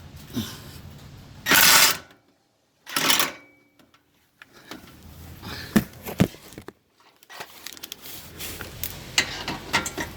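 Impact wrench fired in two short bursts on a 15 mm exhaust manifold bolt, which does not break loose. Light metallic clicks and clinks of tools follow.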